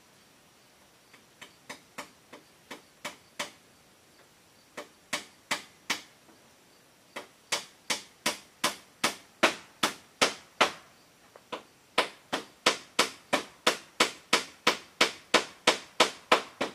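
Hammer blows on the bamboo roof, about two to three a second, in several runs with short pauses between them, the later runs louder.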